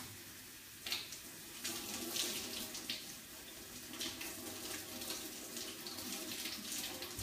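Kitchen faucet running into a sink while an artichoke is rinsed under the stream. The water comes on strongly about a second in, then runs as a steady rush with uneven splashing as it strikes the artichoke's leaves.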